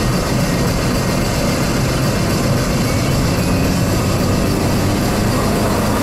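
Steady in-cabin engine and road noise of a 2006 Opel Astra Coupe Bertone with a 2.0-litre engine driving at speed: a constant low rumble with a faint engine hum.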